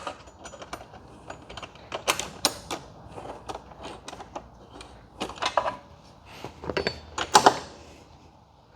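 Hand tools clicking and clinking on steel bolts and nuts as the rack's mounting hardware is tightened. Irregular sharp metallic clicks, with a few louder clusters about two, five and seven seconds in.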